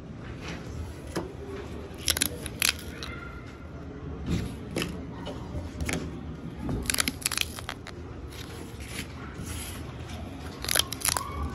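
Cardboard pull-tab tickets being torn open: short paper rips and crackles as the perforated tabs are pulled back, in several brief clusters, the loudest about two seconds in and near the end.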